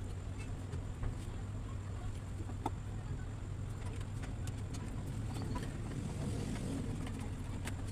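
A steady low mechanical hum with scattered light clicks and ticks.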